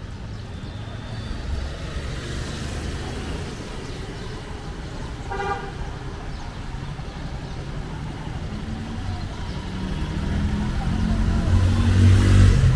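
Street background with one short vehicle horn toot about five seconds in, then a motor vehicle's engine growing louder as it passes close near the end.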